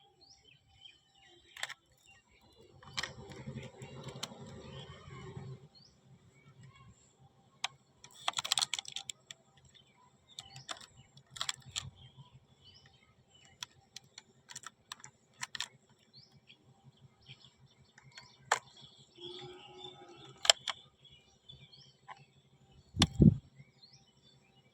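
Scattered light clicks and taps of small plastic pieces being handled, with a few rustling patches and one heavier thump near the end. Birds chirp faintly in the background.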